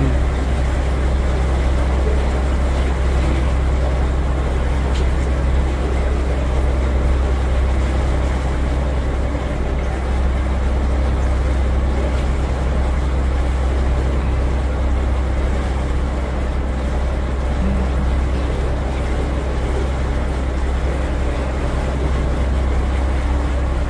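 Tour boat's engine running steadily underway, a constant low rumble with a steady hiss of water and air over it.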